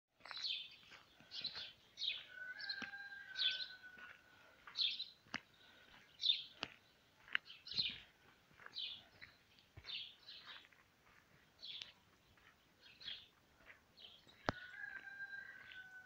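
Footsteps crunching on a gravel road at a steady walking pace, a little more than one step a second, with a few sharp clicks. A rooster crows twice, near the start and near the end.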